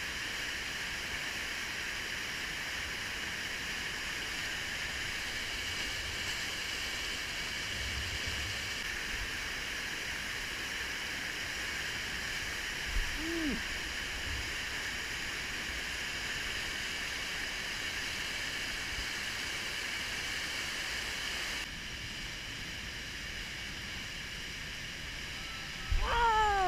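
River whitewater rapids rushing steadily, a dense hiss of churning water close to the microphone, dropping slightly in level about three-quarters of the way through. A person's brief falling call comes about halfway, and a louder falling whoop near the end.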